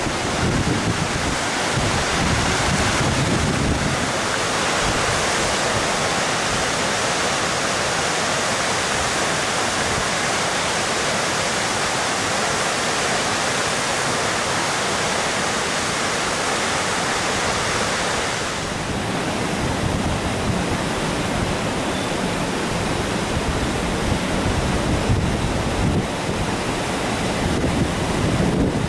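Steady rushing noise with wind buffeting the microphone. About 18 seconds in the hiss thins out, leaving lower, uneven gusty rumbling.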